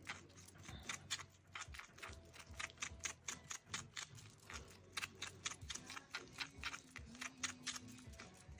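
Wooden stir stick clicking and tapping against the side of a bowl while paint is mixed, several quick irregular clicks a second.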